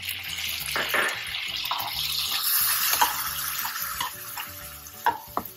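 Freshly added chopped tomatoes sizzling in hot oil in a kadhai of sautéing vegetables, a hiss that swells and then slowly dies down. A slotted metal spatula clicks against the pan a few times as the mix is stirred.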